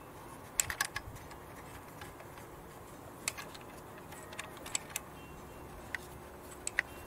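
Scattered light clicks and clinks, about a dozen short sharp ones with small clusters near the start and near the end, from gloved hands fitting plastic connectors and fittings around the injectors and fuel lines of a Kia 2.0 CRDi diesel engine.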